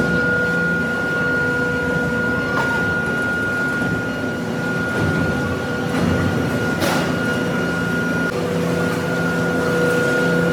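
Industrial machinery running steadily, a loud drone with constant humming tones, and a single sharp knock about seven seconds in.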